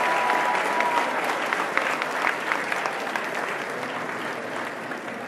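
Crowd applauding, the clapping gradually dying down.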